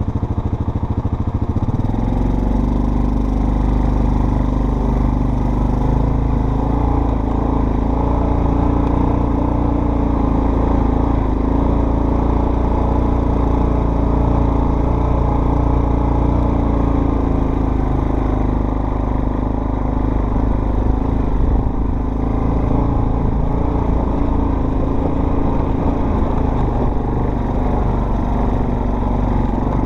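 An off-road vehicle's engine running under way on a trail, with a low rumble. Its note steps up about two seconds in, then holds fairly steady.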